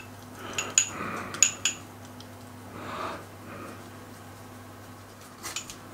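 A few light clinks of a pastry brush against a small glass bowl of egg yolk, mostly in the first two seconds and again near the end, with faint soft brushing sounds between.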